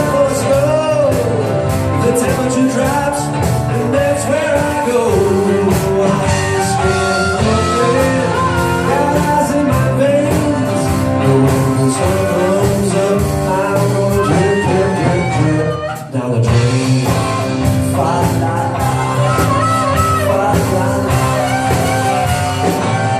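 Live band playing a blues song, with guitar and singing over a steady bass and rhythm. The sound dips briefly about two-thirds of the way through.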